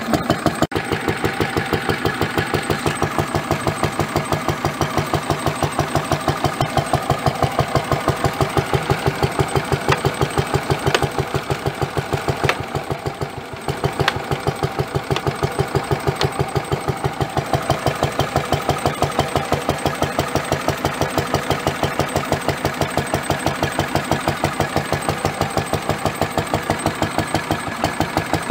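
1945 Lister D single-cylinder stationary engine running steadily, its firing beats coming at an even rhythm, while belt-driving a dynamo under the load of lit lamps.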